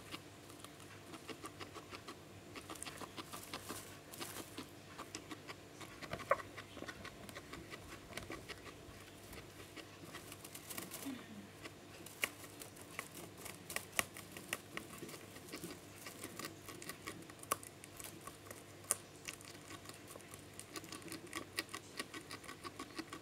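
Guinea pig chewing and pulling at hay close to the microphone: rapid crunching and rustling clicks, with a few louder crunches.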